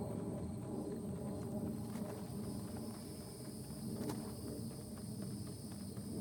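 Insects trilling steadily at a high pitch over a low rustling rumble, with a few faint clicks.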